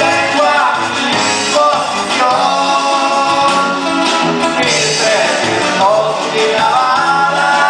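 A corrido being performed: a singing voice over instrumental accompaniment, with a steady beat of low notes.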